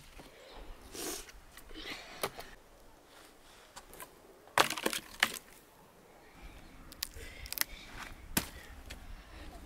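Dry dead branches and twigs being snapped by hand: a series of sharp cracks and splintering with rustling of twigs between, the two loudest snaps about halfway through.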